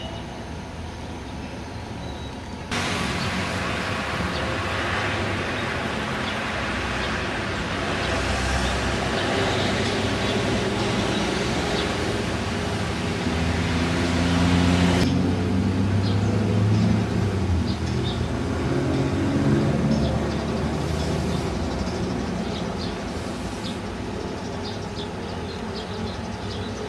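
Road traffic: a motor vehicle's engine runs and passes, its pitch rising and falling through the middle, over a steady hiss of traffic noise. The sound steps up abruptly in loudness about three seconds in.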